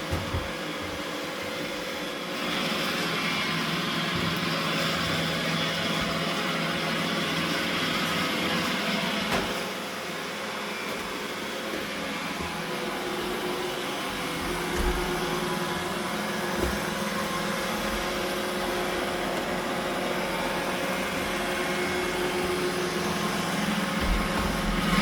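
Roomba robot vacuum cleaner running with a steady motor hum and brush whir, which gets louder about two and a half seconds in and dips briefly near the middle.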